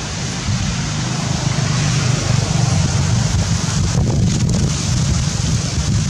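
Wind buffeting the microphone: a loud, steady low rumble with hiss above it.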